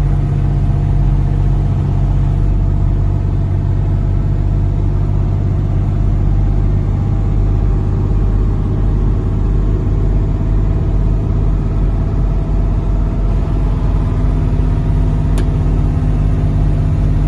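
Semi truck's diesel engine droning steadily inside the cab while cruising at about 35 mph, with road noise underneath. A single light click comes near the end.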